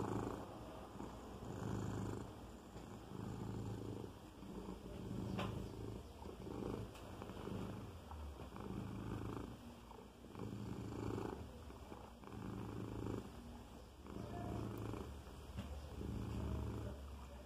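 Long-haired domestic cat purring steadily while suckling a blanket. The purr swells and fades with each breath, about every second and a half.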